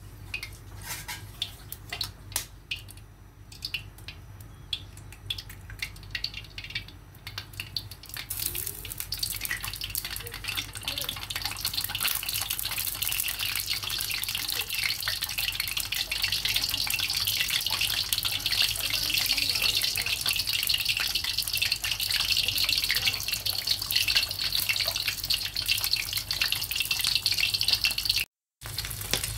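An egg frying in hot oil in a wok. A few scattered crackles and pops, then about eight seconds in a steady sizzle starts and grows louder, carrying on until a brief cut near the end.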